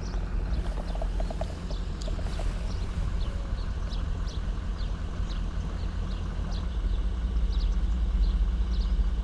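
Steady low rumble of wind on the microphone, with a small bird chirping over and over in the background.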